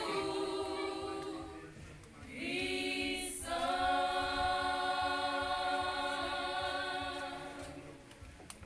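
Women's choir singing a cappella in held chords, with a brief break about two seconds in, then one long final chord that fades away near the end, where the first claps come in.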